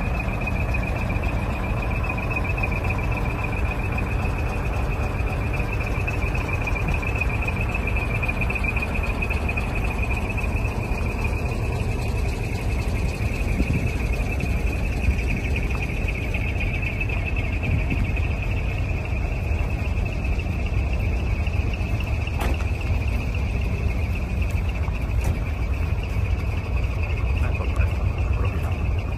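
Steady low rumble of idling truck diesel engines, under a continuous high trill of insects.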